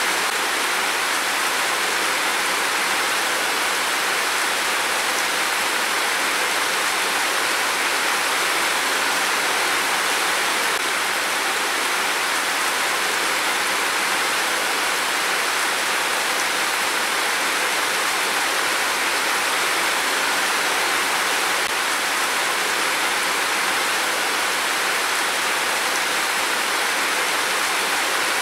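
Heavy rain falling in a steady downpour, an even hiss with no thunder.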